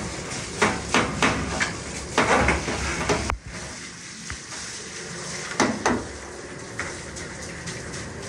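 Handheld shower sprayer running, water spraying onto a wet dog and splashing into a stainless steel grooming tub, with frequent small knocks and clatters, while the shampoo is rinsed out. The spray drops suddenly to a softer hiss about a third of the way in.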